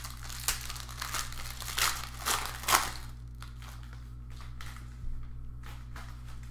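Crinkling and rustling of trading card packs and cards being handled, a quick run of rustles for about three seconds, then sparser, with a steady low hum underneath.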